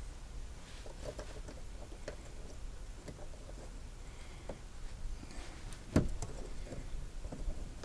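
Faint scattered clicks and taps of hands handling a car's plastic turn signal bulb socket and bulb, with one sharper click about six seconds in.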